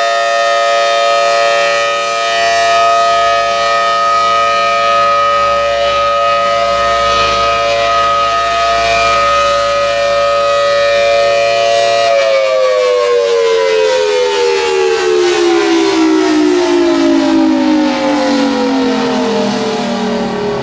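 Federal Signal Thunderbolt 1000T civil defense siren sounding a steady Alert tone, then, about twelve seconds in, shutting off and winding down, its pitch falling steadily.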